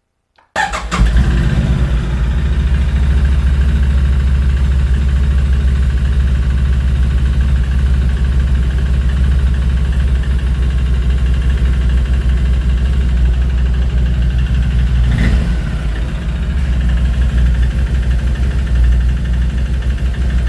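An ATV engine comes on abruptly about half a second in and then runs steadily at idle, with a brief dip around fifteen seconds in.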